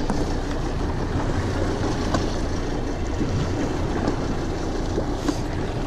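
Steady low rumble of wind and sea on an open fishing boat, with a few faint clicks.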